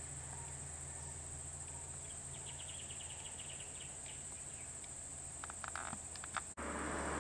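Steady high-pitched drone of insects from the roadside forest over a low hum, with a quick run of chirps about two seconds in and a few clicks later. Near the end the sound breaks off briefly and a louder steady noise comes in.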